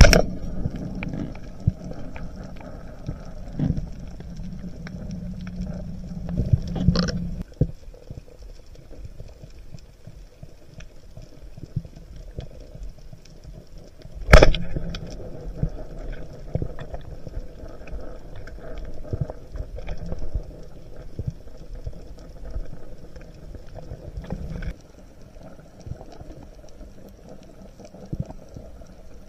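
Underwater ambience picked up through an action-camera housing on a reef dive: a steady low rumble of water moving past the camera with scattered faint clicks, broken by a sharp knock right at the start and a louder one about halfway through.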